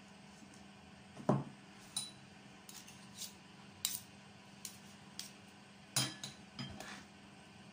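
Metal spoon clicking and scraping against a ceramic plate as salad is spread and shaped on it: a scattering of separate light taps over several seconds, with a duller, louder knock about a second in.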